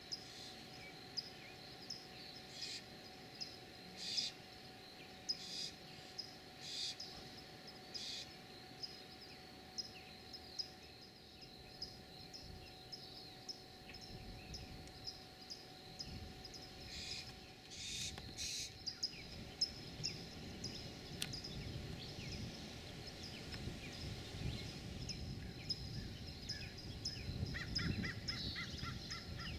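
Barn owls giving short, harsh hissing screeches, repeated irregularly, over a steady run of high chirps about two to three a second.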